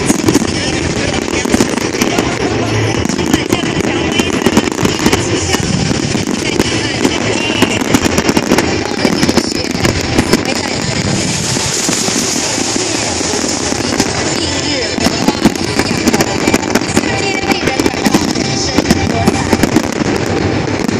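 Fireworks display at full intensity: aerial shells bursting one after another in a dense, unbroken run of bangs and crackling, with no pause.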